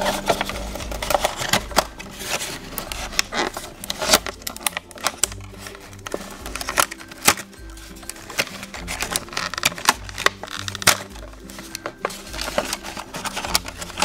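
Upbeat background music with many sharp crinkles and clicks of clear plastic and cardboard toy packaging being pulled apart by hand.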